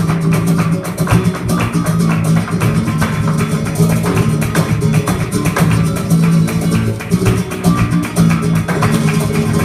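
Flamenco music led by plucked and strummed acoustic guitar, with rapid sharp percussive strikes over steady held low notes.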